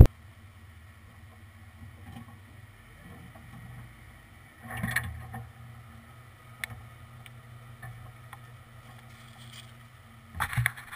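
Ford F-150's V8 engine idling quietly and steadily, with a few small clicks, a brief louder rustle about five seconds in, and two louder noises near the end.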